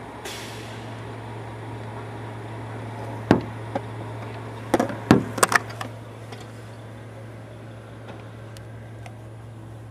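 Mack/Leach rear-loader garbage truck idling with a steady low drone, while a recycling cart is tipped by hand into its hopper. There is a sharp bang about three seconds in, then a quick cluster of bangs and clatters about five seconds in.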